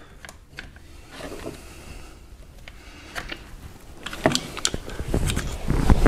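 Small screwdriver prying and scraping at the plastic housing of a Hyundai Sonata door lock actuator, giving scattered light clicks and scrapes, with a few sharper ticks about four seconds in and handling rustle near the end.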